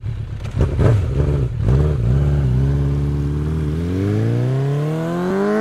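Vehicle engine revving, with a few quick throttle blips, then a steady note that climbs smoothly in pitch from around the middle onward as it accelerates.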